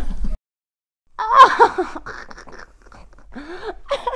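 A woman straining and groaning in a choke hold, with panting breaths and gasps. The sound drops out completely for about half a second near the start, then a loud strained cry follows.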